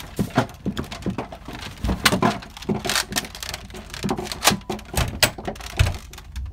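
Irregular rustling and sharp knocks of clothes on hangers and a wooden door being pushed and bumped at close range.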